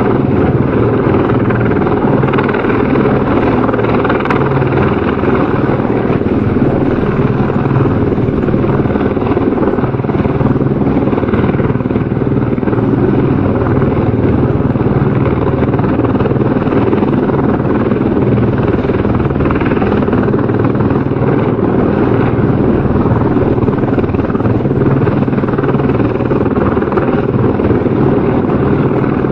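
Helicopter running steadily, a continuous loud rotor and engine noise with no change in level.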